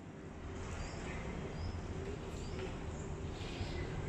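Background ambience: a steady low rumble with a faint hum, and a few short, high chirps scattered through it.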